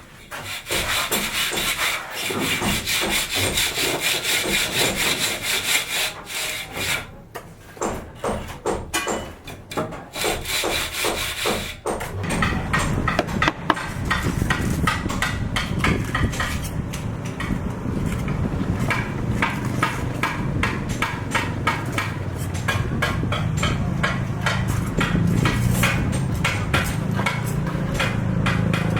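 Construction work: a hand tool scraping or rubbing in rapid repeated strokes, with a low steady hum joining about halfway through.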